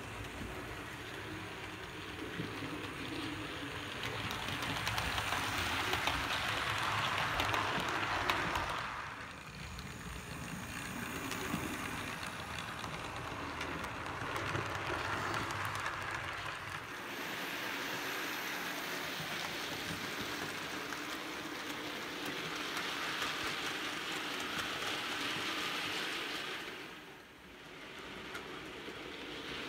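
Model railway trains running on the layout's track: a steady hiss and rumble of small metal wheels on rails with motor hum, swelling as trains pass close and fading between, with dips about nine seconds in and near the end.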